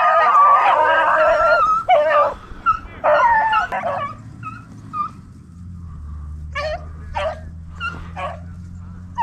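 A pack of rabbit-hunting beagles baying and yelping in excitement as they are put onto a rabbit: many voices at once for the first second or two, then shorter bursts, thinning to scattered single yelps.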